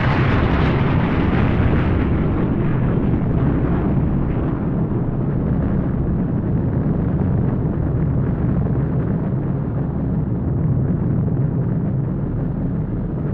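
Explosion sound of a nuclear blast: a sudden blast whose bright edge fades over the first few seconds, leaving a long, steady deep rumble that stops abruptly near the end.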